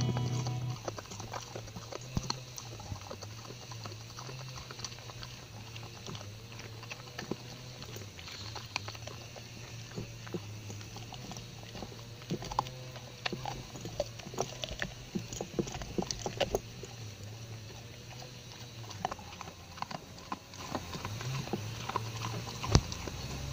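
Dog gnawing a corn cob, crunching and tearing off kernels with irregular wet crunches and clicks of its teeth. A steady low hum runs underneath.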